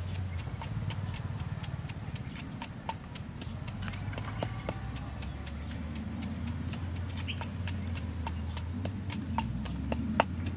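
Wooden pestle pounding in a wooden mortar: a steady run of dull knocks, with a few sharper clicks.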